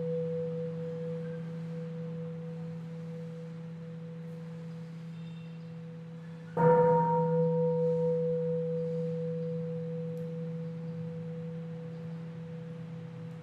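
A large bell rings out with a low hum and a higher overtone, slowly fading from an earlier strike, then is struck again about six and a half seconds in and rings on, fading with a slight wavering.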